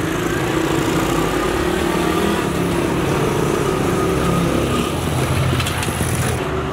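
Small motorcycle engine running steadily as the bike rides up and passes close by.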